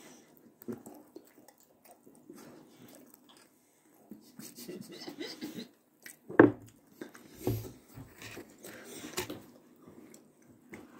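Faint scattered small noises, with one sharp knock about six and a half seconds in, the loudest sound, and softer knocks after it.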